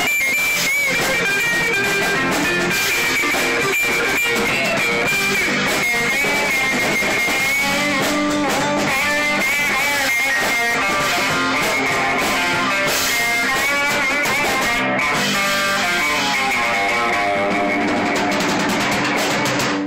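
Electric guitar played through a small combo amp, strummed and picked as a small rock band plays a song live in the room.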